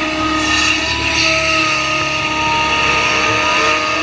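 Case hydraulic excavator working under load, its diesel engine running with a steady hydraulic whine as the full bucket is lifted and swung over a dump truck. A few sliding tones come in about three seconds in.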